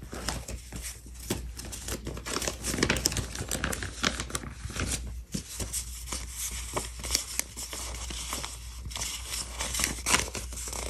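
Paper sticker sheets rustling and crinkling as they are handled and sorted through, with many small irregular crackles and clicks.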